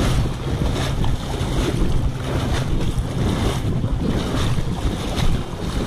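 Shallow seawater splashing and sloshing right at the action camera, with wind buffeting the microphone in uneven gusts.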